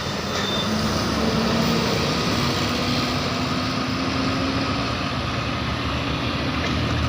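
Bus engine running as it passes, with a steady drone that sinks slightly in pitch over a few seconds amid road noise. No telolet horn sounds.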